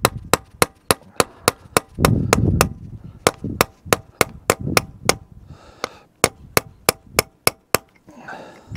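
A hammer taps rapidly on a steel chisel held against the hydraulic cylinder bushing and snap ring of a Bobcat E50 excavator's X-Change, at about five sharp metallic strikes a second. The snap ring is wedged in place by the backed-out bushing. The tapping pauses for about a second a little past halfway, then carries on and stops near the end.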